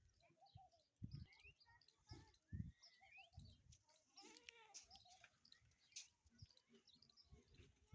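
Several birds calling: many short chirps and quick rising whistles, with a lower arching call about halfway through. A few low thumps come through, the loudest about one and two and a half seconds in.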